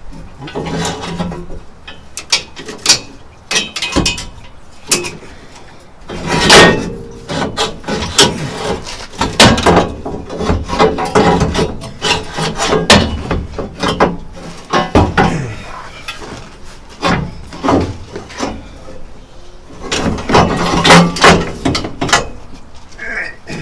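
Irregular metal clanks, knocks and scraping as a tubular steel exhaust header is worked into place against the side of the engine, with louder clusters of knocks about six seconds in and again near the end.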